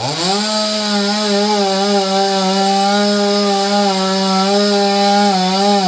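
Two-stroke chainsaw revving up and then running at high speed, its steady note wavering slightly.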